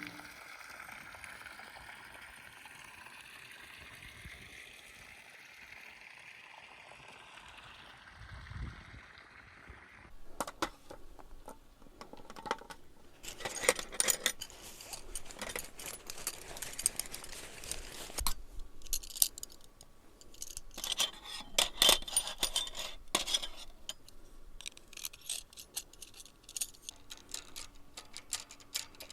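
A faint, even hiss for about the first ten seconds, then repeated clinks, rattles and knocks of small hard objects being handled, coming in uneven clusters.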